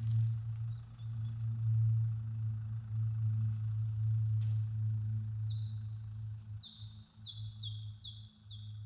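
A bird calling: a run of short, falling high chirps starting about five seconds in and coming faster toward the end, over a steady low hum.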